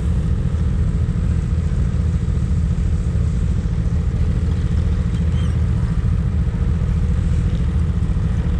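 A vehicle engine running at a steady speed, a continuous low rumble.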